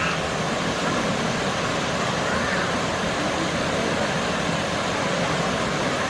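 Steady, even rush of a waterfall cascading down a rock face into a pool.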